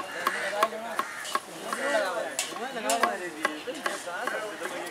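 Knife chopping red capsicum on a wooden chopping block: sharp knocks of the blade striking the wood, about two to three a second at an uneven pace.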